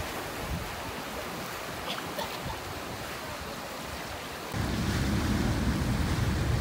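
Steady rushing water with a few faint splashes. About four and a half seconds in it gives way to a louder low rumble of wind on the microphone.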